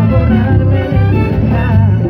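Live band playing cumbia, with a steady bass line and a melody line on top.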